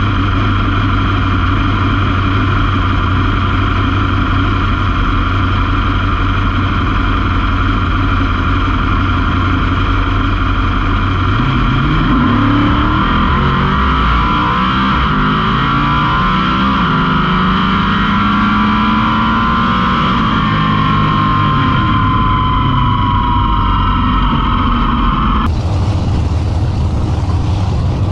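Drag race car engine running at a steady idle. About halfway through, its pitch starts rising and falling in waves while a higher whine slowly drops. Near the end the sound changes abruptly.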